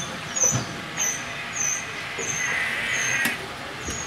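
Butcher's knife scraping and slicing through the fat and hide on a cow's head, over steady street-traffic noise, with a short high chirp repeating about twice a second.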